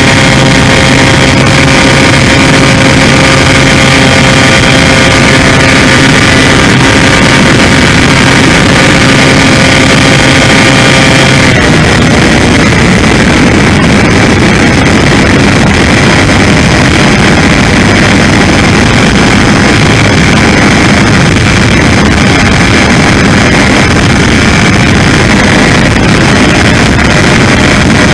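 Multiplex Easy Star's electric motor and pusher propeller whining steadily, heard loud through the onboard camera's microphone along with wind rush. The motor's tone changes abruptly about eleven seconds in.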